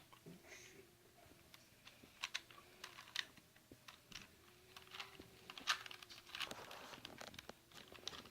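Rubik's cube being turned by hand: irregular light plastic clicks and rattles as its layers are twisted.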